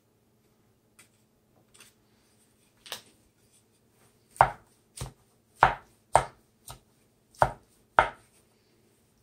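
Wooden spatula chopping down through an egg omelette in a frying pan, its edge knocking on the pan bottom: a few faint taps, then from about four seconds in six or seven sharp knocks about half a second apart.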